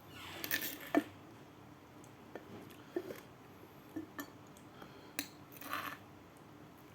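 Eating sounds: scattered clicks, clinks and short scrapes of cutlery against a plate of rice and sambal, the loudest about a second in.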